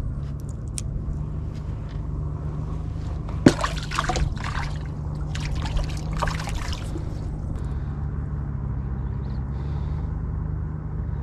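Water trickling and sloshing around a wooden fishing boat over a steady low hum, with a sharp knock about three and a half seconds in and scratchy rustling and knocking of handling for a few seconds after.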